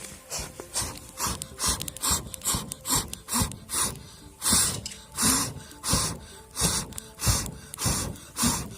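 Rhythmic swishing strokes, about two a second, each with a low thump, growing louder about halfway through.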